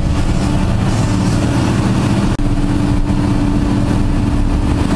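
Large Hitachi hydraulic excavator working: its diesel engine runs steadily with the hydraulics. After a brief dropout about halfway through, a steady hum is stronger.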